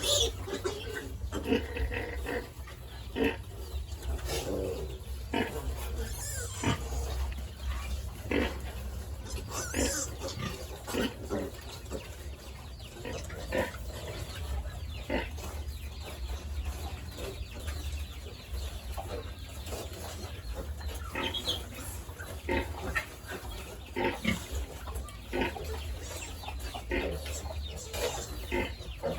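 Pigs and chickens: scattered short grunts and clucks over a steady low hum.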